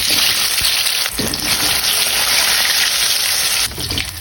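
Chicken frying in hot oil: a loud, steady sizzle that stops abruptly near the end.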